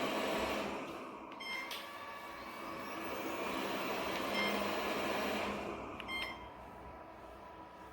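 Airzeen R7 robot vacuum running, its suction motor and brushes whirring, louder and quieter as it moves about. Two brief high-pitched blips come about a second and a half in and again about six seconds in.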